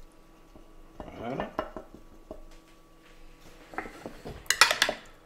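A metal utensil clinking and scraping against a glass dish as squid rings are stirred in sauce, starting faintly about four seconds in and loudest just before the end.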